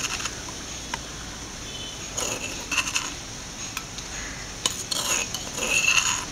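A steel spoon scraping and clinking against a stone mortar and a stainless steel bowl as coarsely ground chana dal is scooped from one into the other. The bowl rings briefly at each knock, in a few short clusters about two seconds in and again around five seconds.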